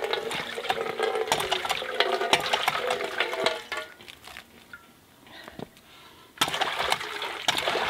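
Red cast-iron pitcher pump worked by hand: the handle clanks on each stroke and water gushes from the spout into a metal bowl. It goes quiet for about two seconds midway, then the pumping and splashing start again.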